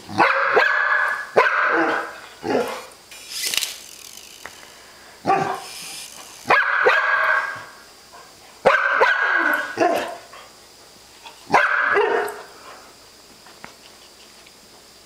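Golden retriever barking in short bursts, one or two barks at a time with pauses between, at a toy RC helicopter it is wary of; the barking stops a few seconds before the end.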